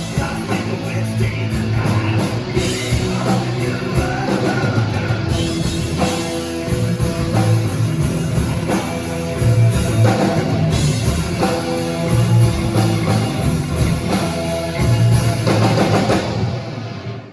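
Rock music with drum kit and guitar, cutting off near the end.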